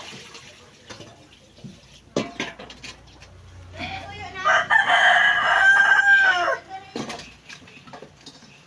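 A rooster crowing once, a single long call of about two and a half seconds that rises, holds and falls away. A few short knocks come before and after it.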